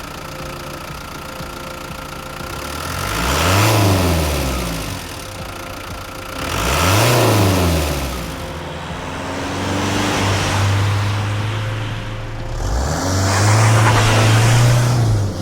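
Renault Master II diesel engine idling, then revved twice in quick blips that rise and fall back, then held at a steady raised speed for a few seconds, dropping back briefly, and held raised again before falling near the end.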